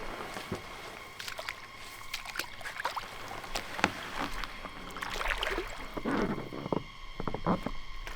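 Paddle strokes in lake water: irregular splashes, sloshing and dripping, the heaviest in the second half.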